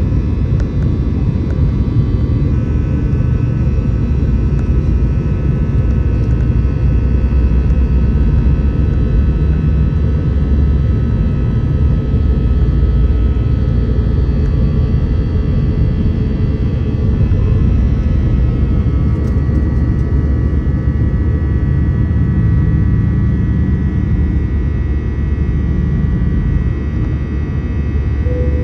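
An Airbus A320-214's CFM56 engines at takeoff thrust, heard inside the cabin from a window seat over the wing: a loud, steady engine noise with a deep rumble and several steady whining tones over it. The aircraft rolls down the runway and lifts off late on.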